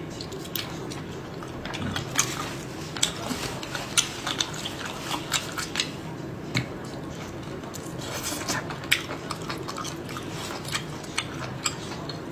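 Close-miked chewing and biting of cooked seafood, with irregular sharp wet clicks and smacks over a steady low background.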